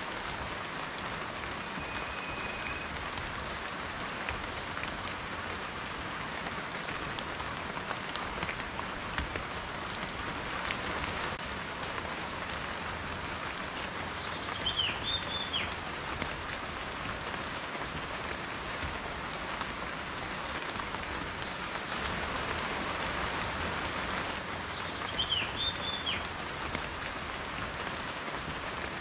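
Steady rain falling, a constant hiss with scattered individual drops ticking through it. A short high chirp sounds twice, about halfway through and near the end.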